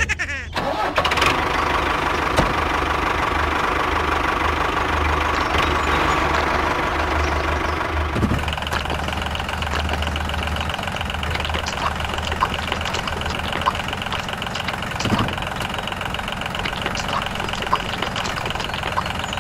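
A tractor engine running steadily, with a low rumble and a faint ticking. About eight seconds in the tone changes: the low rumble drops away and a higher whine comes up.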